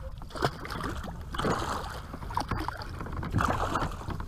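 Hooked barracuda thrashing at the surface beside a kayak, with several irregular splashes over a steady low wind rumble.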